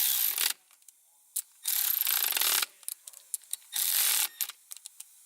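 Cordless electric ratchet snugging the shifter base-plate bolts: three short runs of about a second each, with small clicks of the tool and bolts in between.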